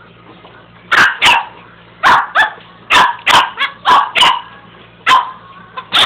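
A small dog barking at a carpet sweeper being pushed over the carpet: about a dozen short, sharp barks in quick runs of two to five, starting about a second in.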